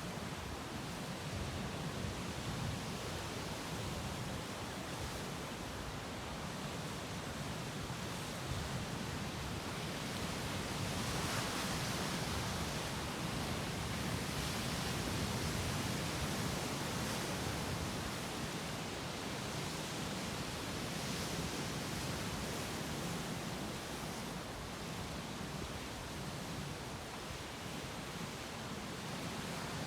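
Sea waves breaking on rocks: a continuous wash of surf that swells louder around the middle and eases off again.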